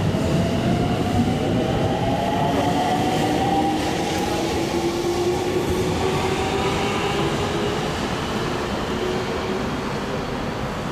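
JR Central 313 series 8000-subseries electric train pulling away, its VVVF inverter traction motors whining in two tones that rise steadily in pitch as it gathers speed, over the rumble of its wheels on the rails. The whine fades in the second half as the train draws away.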